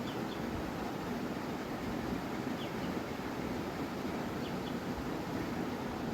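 Ceiling fan running steadily, a constant, even rush of air with no change in speed.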